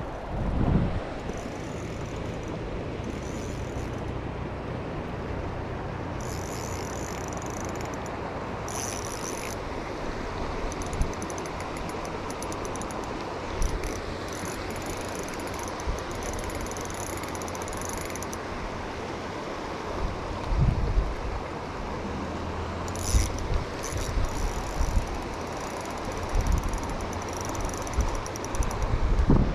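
Spinning reel cranked through retrieves, its gears whirring with fast ticking, in a long spell in the first half and a shorter one near the end, over the steady rush of the river current. A few low bumps break in along the way.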